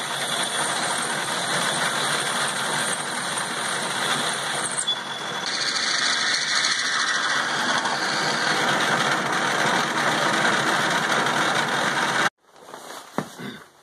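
Metal lathe running while a drill bit in the tailstock bores into the end of a hex bar turning in the chuck: a steady whir with cutting noise. The sound changes about five seconds in and stops abruptly near the end.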